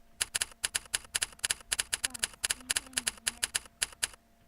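Rapid typing on a computer keyboard, each keystroke a sharp click from a Razer mechanical-keyboard sound-effect program, coming in quick irregular runs with a short pause near the end.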